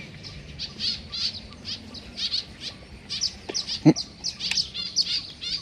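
Many small birds chirping quickly and continuously: a busy chorus of short, high calls. One short knock sounds about four seconds in.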